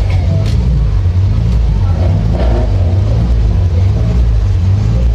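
Race car engine running hard at racing speed: a loud, steady low drone that wavers slightly as the throttle comes on and off.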